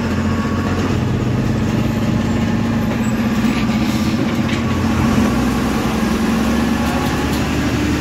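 MSRTC bus's diesel engine running steadily as the bus drives along, heard from inside the cabin beside the driver, as a constant low hum.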